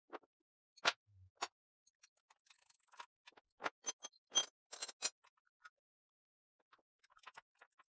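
Scattered sharp metallic clicks and clinks of steel hardware and hand tools being handled, with a quick run of ringing clinks about four to five seconds in and a few lighter taps near the end.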